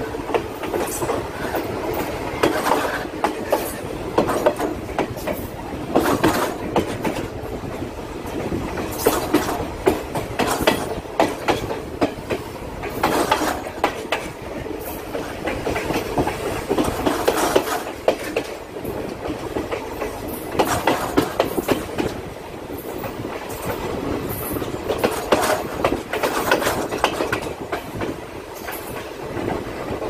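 Passenger train running at speed, heard from on board: a steady rumble and rattle of the carriage with irregular clacks of the wheels over the rail joints.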